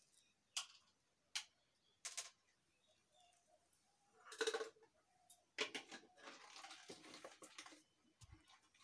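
Scattered light clicks and knocks from household objects being handled. A louder clatter comes about halfway through, followed by a couple of seconds of rapid clicks and rustling.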